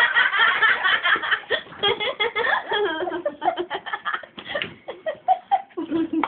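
People laughing, densest in the first three seconds, then in scattered short bursts.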